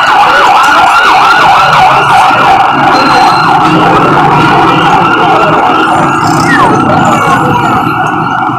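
Emergency-vehicle siren in a fast up-and-down yelp, about three sweeps a second. It is loud for the first few seconds and then fades, with street noise underneath.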